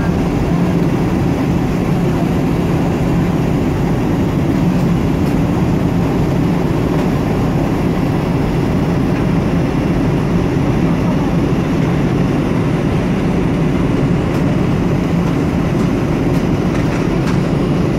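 Steady low rumble of an airliner cabin in cruise flight: engine and airflow noise heard from inside the passenger cabin.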